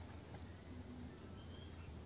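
Quiet room tone with a steady low hum and a few faint light clicks from small drill gearbox parts being handled.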